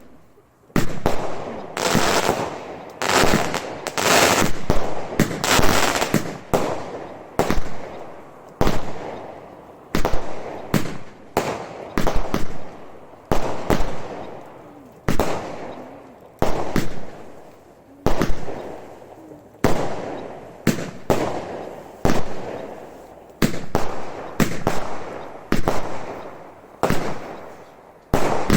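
Consumer firework barrage cake firing shot after shot, each a sharp bang that fades out. The shots come densely and overlapping in the first few seconds, then settle to about one a second.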